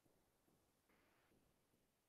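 Near silence: a pause with no audible sound.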